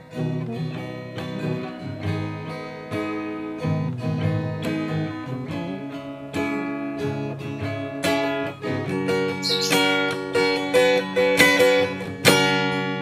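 Acoustic guitar with a capo, picking an instrumental song intro of single notes and chords that ring into each other, growing louder and busier in the second half.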